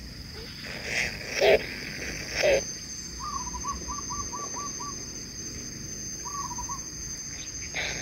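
Kingfisher nestlings in a tree-hole nest calling: a few short squawks in the first three seconds, then a quick trill of about eight notes around three seconds in and a shorter trill near seven seconds, over a steady high whine.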